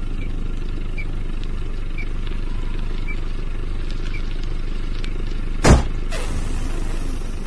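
Cartoon sound effects of a small car driving: its engine runs with a steady low rumble, then a single loud bang about three-quarters through as the car jolts, followed by a rushing noise that fades.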